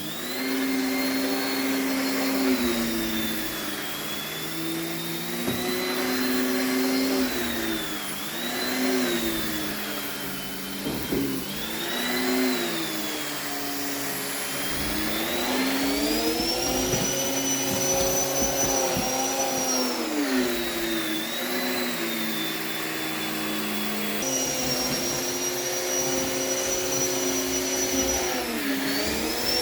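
Central vacuum running through its long hose and carpet head, a steady suction whine with a thin high whistle above it. Its pitch dips and rises again and again as the head works the floor, climbing higher for a few seconds about halfway through.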